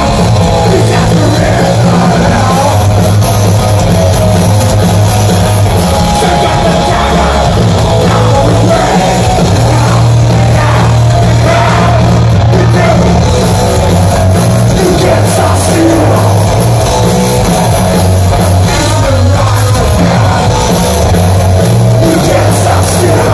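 Live metal band playing loudly: distorted electric guitars, bass and drums with vocals. The low end is heavy and dominant throughout.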